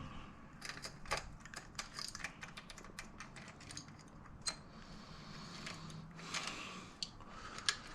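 Connex Wipperman bicycle chain being handled and fitted onto the sprockets: light, irregular metallic clicks and taps as the links move.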